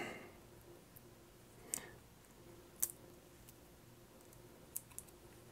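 A few faint, scattered clicks and ticks of a pry tool levering a smartwatch battery out of its tray, two of them close together near the end.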